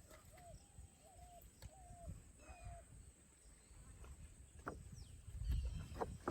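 A short animal call repeated about twice a second, stopping about two and a half seconds in, over low rumbling noise with a few faint clicks.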